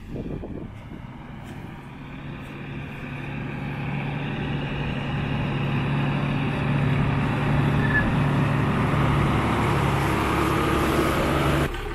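Engine of a converted box-truck camper running at low speed as the truck crawls along a dirt track, growing steadily louder as it comes close and passes. The sound cuts off suddenly near the end.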